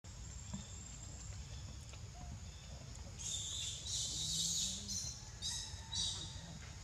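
Outdoor ambience with a steady low rumble. About three seconds in comes a burst of high-pitched, buzzy calls lasting nearly two seconds, then two short calls of the same kind near the end.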